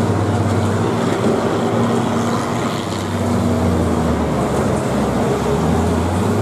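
Engines of several old John Deere combines running as they are driven about, a steady low drone whose pitch shifts a little as the throttles change.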